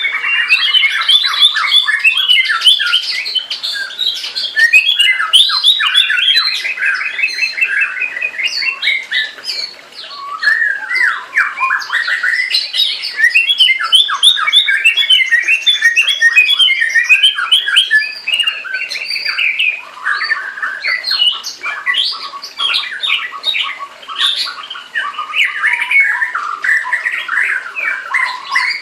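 Red-whiskered bulbul singing loud, rapid, piercing phrases almost without a break, with a short pause about ten seconds in. This is the aggressive dominance and fighting song that the owner says is the only song this bird sings.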